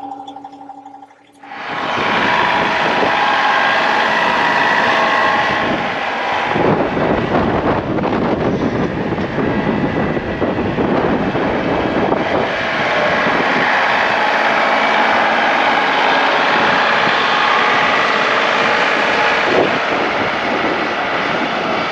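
A John Deere 2038R compact tractor's three-cylinder diesel engine running steadily under load while plowing snow. It starts abruptly about a second and a half in and stays loud.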